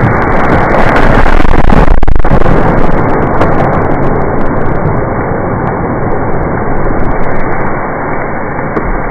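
A felled hardwood log being dragged over the ground and past a stump: a loud, steady rumble of the pull, loudest in the first few seconds, with scattered sharp cracks of wood and branches.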